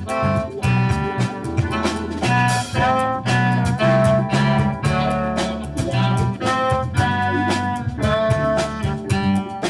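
Jazz-style band music in a swing feel: brass and saxophones playing a melody over a walking bass line, with a steady beat.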